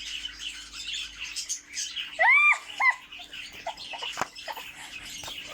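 Bird calling, with a faint chirping chatter throughout and two louder arched whistled calls about two seconds in; a few faint clicks are heard as well.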